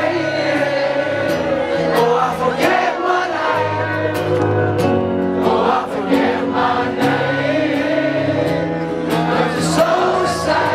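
Live acoustic performance: strummed acoustic guitars with male vocals, and many voices singing along together.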